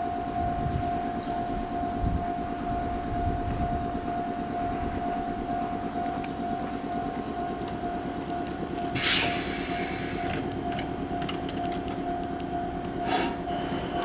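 A JR 105 series electric train stands at the platform. Its equipment gives a steady whine over a low rumble, with a sharp burst of air hissing about nine seconds in and a shorter one near the end.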